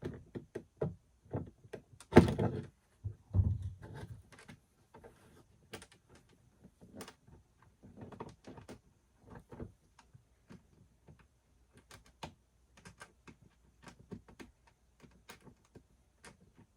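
Irregular clunks, knocks and clicks of hard plastic kayak outfitting parts being handled and worked into place in the hull, with two heavier thuds about two and three and a half seconds in.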